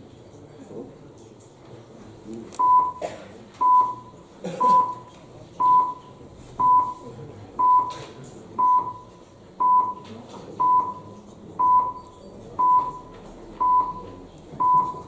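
Electronic voting system's timer beeping: a short single-pitched beep about once a second, thirteen times, starting a few seconds in, while the voting time counts down. A faint room murmur lies underneath.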